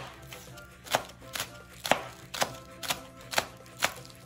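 Chef's knife chopping green onions on a plastic cutting board: sharp knife strikes about twice a second, with background music underneath.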